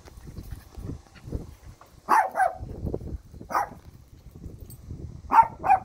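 Small dogs barking during rough play: five short, sharp play barks, a quick pair about two seconds in, one a second later, and another quick pair near the end.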